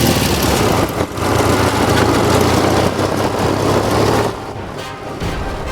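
Loud background music over a steady low drone, dropping in level about four seconds in.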